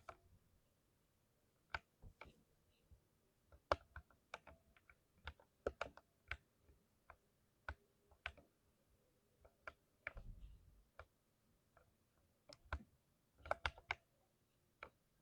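Lubricated switches of a 60% mechanical keyboard clacking under irregular typing, a few keystrokes a second with short pauses between runs.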